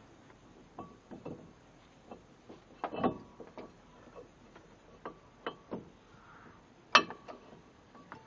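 Scattered clicks and knocks of brake parts and tools being handled while a brake rotor is refitted on a minivan's front hub. A louder knock comes about three seconds in, and a sharp one at about seven seconds.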